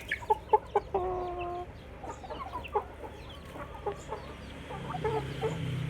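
Chickens clucking at feeding time: many short scattered clucks, with one longer drawn-out call about a second in.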